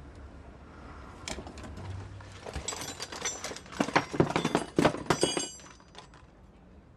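Knocks, clatter and metallic clinks of hard objects being handled, starting about a second in, busiest in the middle and stopping near the end.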